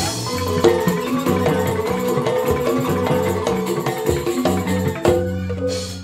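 Balinese joged bumbung gamelan music: bamboo xylophones playing quick repeated notes with percussion. The music thins out near the end.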